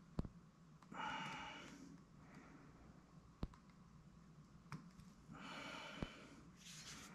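Faint, close breathing: a man breathing out heavily twice, about a second in and again near the end, with three short sharp clicks spaced through the quiet.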